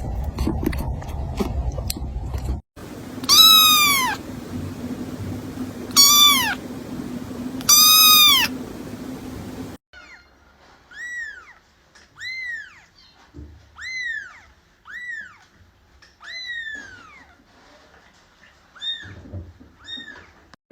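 Kittens meowing. After a couple of seconds of low rumbling noise with a few clicks, one kitten gives three loud, long meows that fall in pitch. Then a run of about eight shorter, higher-pitched mews follows, roughly one a second.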